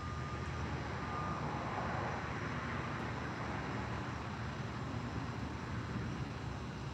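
Steady low background rumble with a faint hiss, and a faint thin high tone that fades out about a second and a half in.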